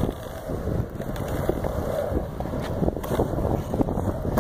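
Longboard wheels rolling on a concrete parking deck, a steady rumble with a few sharp clicks, with wind buffeting the microphone.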